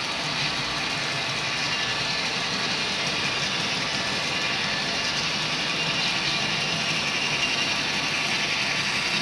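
Model freight train running past on layout track: a steady whir and rattle of small wheels and motors, with a faint fast clicking that grows as the model diesel locomotives come by near the end.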